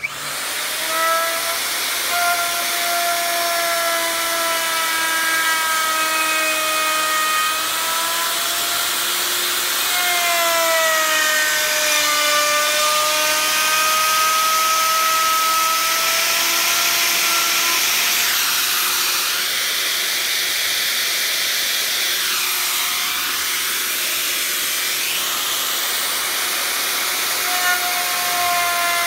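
Dongcheng electric plunge router switched on and running, a steady high motor whine over the hiss of the bit cutting a groove along a wooden board. The whine's pitch dips and recovers about ten seconds in, and for a stretch near the end the cutting hiss drowns the whine before it comes back.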